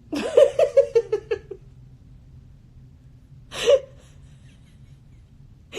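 A woman laughing in a quick run of short bursts for about a second and a half, then one more short laugh about three and a half seconds in.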